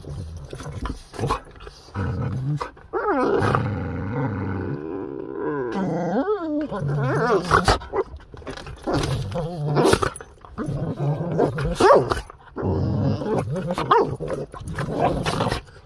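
Two dogs, a pit bull and a boxer-husky mix, play-fighting: nearly continuous growling and snarling that rises and falls, with sharp snaps and clicks of jaws and teeth as they mouth at each other. It is rough play, not a real fight.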